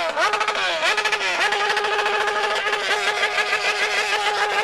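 Motorcycle engine accelerating through the gears at high revs. The pitch climbs, drops sharply at a shift about a quarter second in and again about a second and a half in, then holds at a high, steady pitch.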